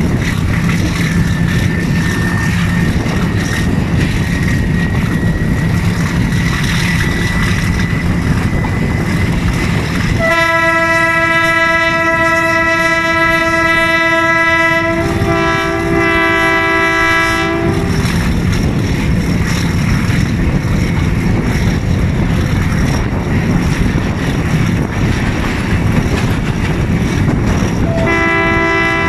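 GRU 20 (GE U20C) diesel-electric locomotive working hard under load, its engine running heavily over wheel and rail clatter, heard close from the leading coach, with a faint rising whine in the first few seconds. Its multi-note horn sounds one long blast of about seven seconds starting about a third of the way in, shifting to a different chord partway through, and sounds again just before the end.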